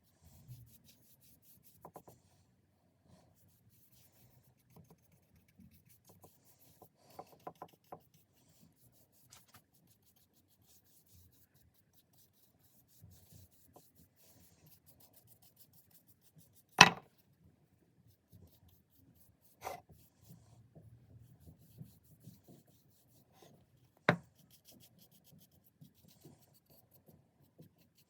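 Faint, intermittent rubbing and scraping on wood as the hatchet's wooden handle is worked by hand, broken by three sharp knocks, the first and loudest a little past halfway.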